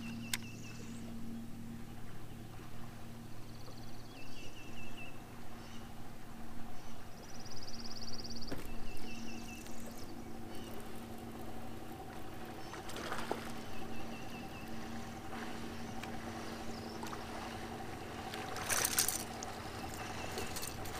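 A hooked bass splashing at the water's surface as it is reeled in, the loudest splashing near the end as it is swung out of the water. Under it, a steady low hum, and short high bird trills repeating every few seconds.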